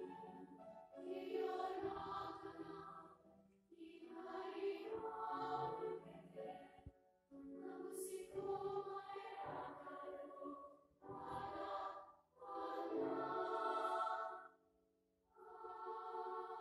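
Large choir singing in sustained phrases, each breaking off briefly before the next, with a slightly longer pause near the end.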